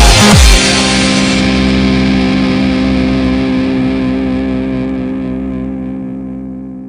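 Music: a brief end of a bass-heavy electronic track, then a single distorted electric guitar chord held and slowly fading away.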